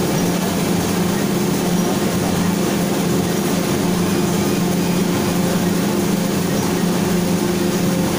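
Automatic corrugated board plant running steadily in auto mode at about 80 metres a minute: continuous machine noise with a constant low hum.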